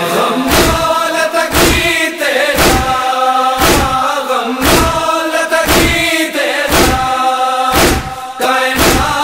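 A group of male voices chanting an Urdu nauha in unison, with sharp matam (chest-beating) thumps keeping time about once a second.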